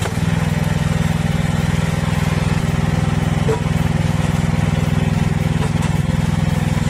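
Small engine running steadily at constant speed, driving the hydraulic pump of a homemade log splitter.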